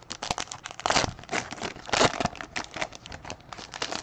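Baseball cards and their plastic packaging being handled, crinkling and rustling in a dense run of quick crackles.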